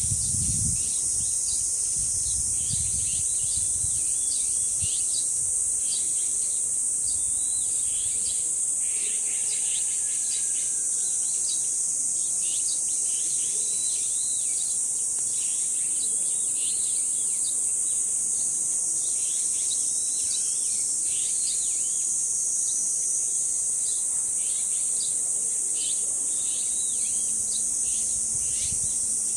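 Cicadas droning in a steady, high-pitched chorus, with many short bird chirps and calls over it. Wind rumbles on the microphone for the first several seconds and comes back near the end.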